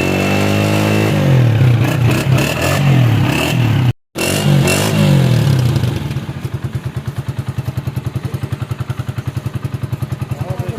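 Honda CG125's air-cooled single-cylinder four-stroke engine being revved, its pitch rising and falling several times, then after a brief cut about four seconds in, settling to a steady idle with an even, rapid pulsing beat.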